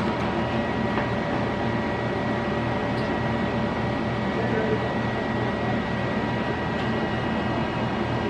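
Steady machine hum and hiss of a room, with a faint, steady high whine running through it.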